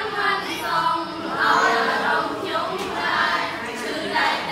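A small group of girls singing a Khmer song together in unison, unaccompanied.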